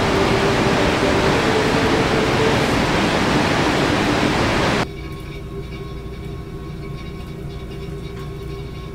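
Loud rushing of churning whitewater at a waterfall, with faint steady tones beneath it, cuts off abruptly about five seconds in. A much quieter steady hum with several held tones follows.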